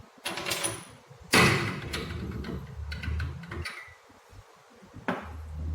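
Metal tools and injector parts knocking and clattering on a workbench: a few sharp knocks, the loudest about a second and a half in, each followed by a short rattle.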